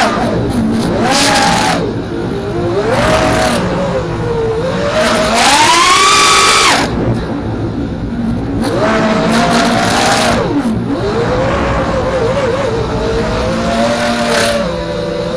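FPV racing quadcopter's brushless motors and propellers whining. The pitch climbs and falls with each throttle punch and comes with a rush of air noise, loudest about six seconds in, then settles to a steadier, wavering tone near the end.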